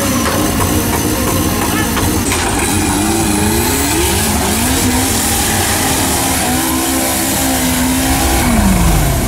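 Off-road buggy engine revving hard under load, its pitch climbing and dropping again and again as it churns through mud, then falling away near the end.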